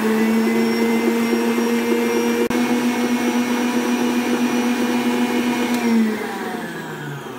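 Stand mixer's motor running at high speed, its wire whisk beating eggs and sugar into a foam for a sponge-style base, a steady whine. There is a brief dropout about two and a half seconds in, and near the end the motor winds down with its pitch falling.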